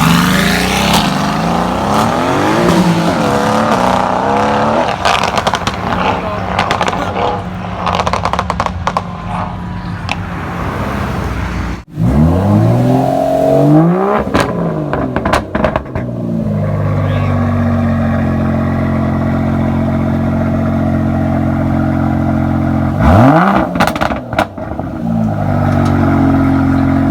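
Supercar engines revving and idling across several short clips. Rising and falling revs through the first half; after a sudden cut about halfway in, a hard rev-up; then a steady idle broken by one quick throttle blip near the end.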